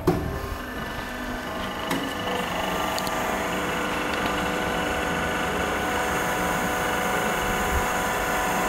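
Hydraulic power unit of an HDPE butt fusion welding machine switched on with a click, its electric motor and pump then running with a steady hum of several tones that grows a little louder.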